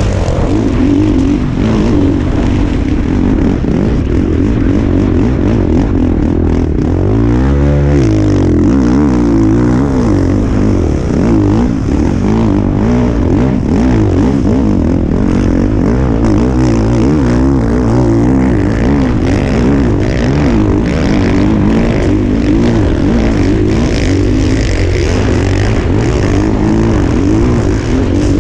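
Motocross bike engine ridden hard, its pitch rising and falling over and over with throttle and gear changes, with one deep drop and climb about eight seconds in.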